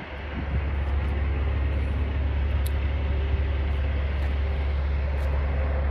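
Semi-truck's diesel engine running with a steady low drone and road noise, heard from inside the cab; it swells over the first second, then holds even.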